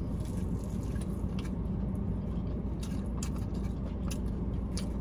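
Biting into and chewing a crispy fried chicken wing: a few short, scattered crunches over a steady low hum inside a car cabin.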